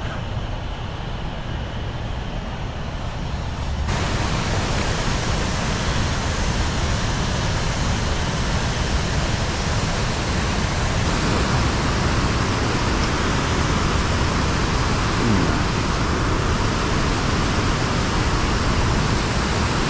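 Water pouring over a dam spillway: a steady rush of falling water that grows louder about four seconds in, then holds.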